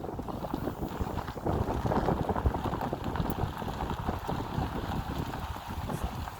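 Wind buffeting the microphone over a low, uneven rumble, as on a moving boat.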